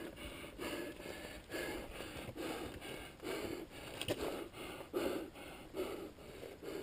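A climber's heavy, rhythmic breathing, about one breath a second, from the exertion of scrambling up steep rock, with a single sharp knock about four seconds in.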